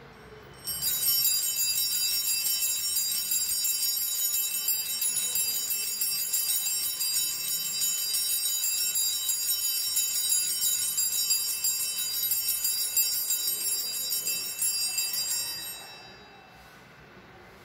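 Altar bells shaken continuously, a bright steady jingling ring that starts just under a second in, lasts about fifteen seconds and then dies away. The ringing marks the elevation of the consecrated host at Mass.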